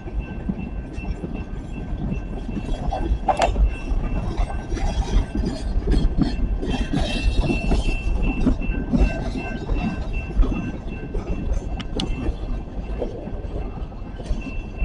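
Freight train cars rolling past: a steady heavy rumble of wheels on rail with irregular clanks and knocks, two sharp metallic bangs about three and twelve seconds in. A faint high ringing tone sounds steadily underneath.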